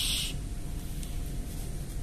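Toy kitchen faucet's electronic running-water sound, a steady hiss that cuts off abruptly a fraction of a second in, leaving only low room hum.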